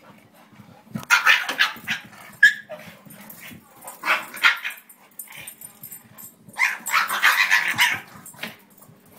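A pug and a rottweiler play-fighting, with barking in three bursts: about a second in, around four seconds in, and again from about six and a half to eight seconds.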